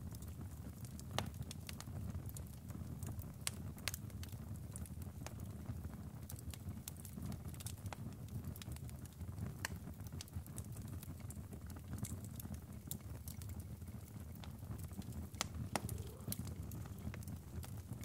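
Wood fire crackling: irregular sharp pops and snaps over a steady low rush.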